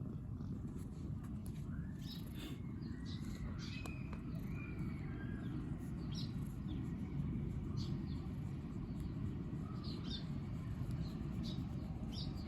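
Birds chirping now and then, short high calls with a few sliding notes in the first few seconds, over a steady low outdoor rumble.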